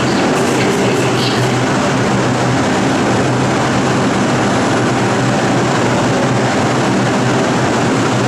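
Steady hum and hiss of an R142 subway train standing at the station platform with its equipment running, heard in a reverberant underground station.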